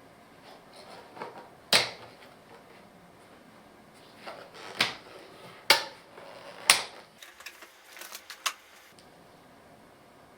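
Packaging and a handheld diagnostic tool being handled during unboxing: a scattering of sharp clicks and knocks, about five louder ones, with light rustling between.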